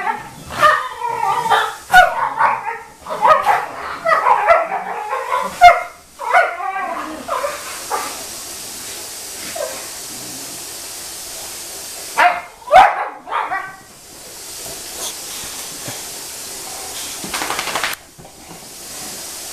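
Boxer dogs playing, yipping, barking and whining in a dense run over the first six seconds and again briefly about twelve seconds in. In between and afterwards there is a steady hiss.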